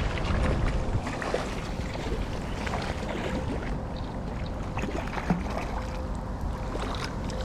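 Wind rumbling on the microphone outdoors, with a few light clicks and ticks over it.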